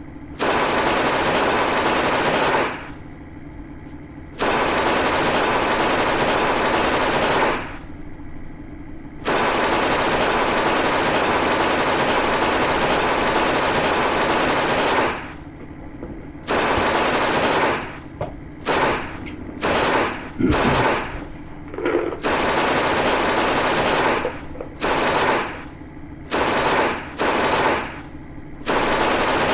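Thompson .45 submachine gun firing full-auto: three long bursts of several seconds each, then a string of short bursts about a second long.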